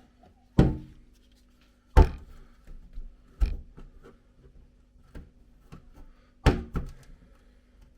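Objects being handled and set down on a kitchen worktop: five separate knocks and thunks, two of them close together near the end, over a faint steady hum.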